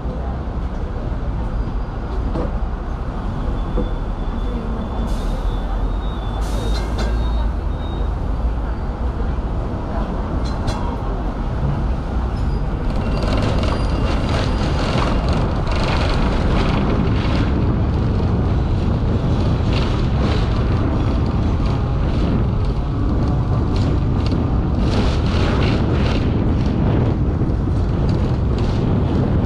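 Hong Kong double-decker tram running along its street track, heard on board: a steady low rumble of motors and wheels on rail. From about halfway it is joined by dense rattling and clicking.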